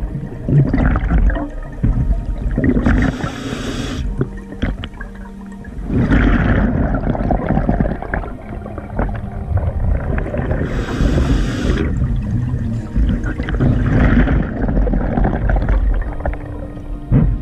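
Scuba regulator breathing underwater: a hissing breath drawn through the demand valve alternating with a bubbling exhale, a burst every three to four seconds over a low rumble.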